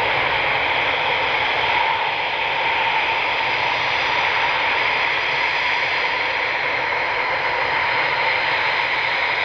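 Eurofighter Typhoon's jet engines running steadily: an even rush of noise with a few faint steady whine tones, holding the same level throughout without rising or falling.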